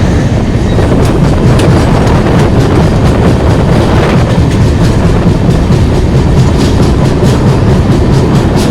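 Indian Railways LHB passenger coaches rolling past close by: a loud, continuous rumble of steel wheels on rail, with repeated clacking knocks over the track.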